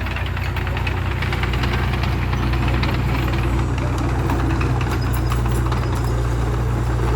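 Heavy diesel engine of earthmoving machinery running steadily under load, with a fast, even clatter.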